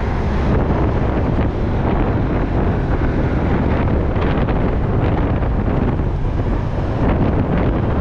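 Wind buffeting the microphone while riding on a moving motorcycle, with the motorcycle's engine and road noise underneath.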